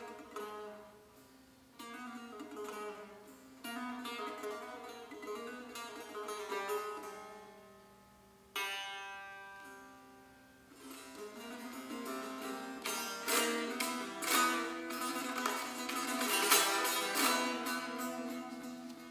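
Solo tanbour, the Kurdish long-necked fretted lute, played with the fingers. Short phrases of ringing plucked notes give way, about eight seconds in, to one long note left to ring. Through the second half comes fast, loud finger-strumming that builds and then eases off near the end.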